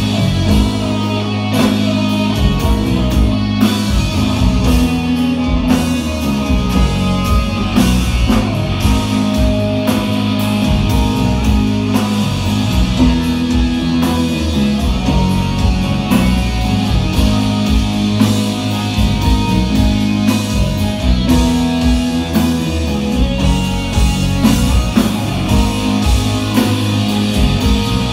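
A rock band playing live, an instrumental passage of electric guitars over bass and drums with no vocals.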